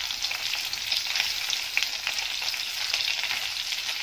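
Oil sizzling steadily with small crackles as stuffed spiny gourds (kantola) shallow-fry in a non-stick kadhai, while a steel spoon turns them over.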